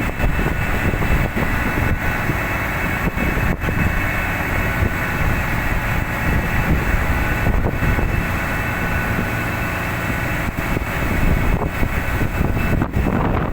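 Tugboat engine running steadily, a loud even drone with a faint high whine over it.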